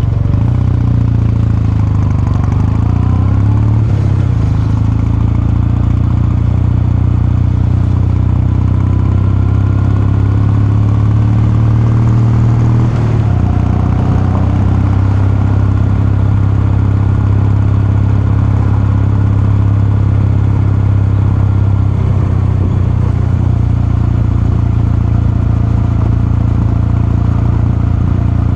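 Kawasaki Meguro K3's air-cooled 773 cc parallel-twin engine and exhaust, heard from the rider's seat while underway. The engine note changes pitch in the first few seconds, shifts again about thirteen seconds in, and otherwise holds steady.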